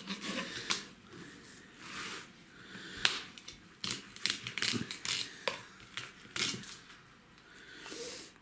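Filleting knife cutting the backbone out of a chum salmon on a plastic cutting board: irregular sharp clicks and short crunching scrapes as the blade passes over the rib bones and spine, the loudest click about three seconds in.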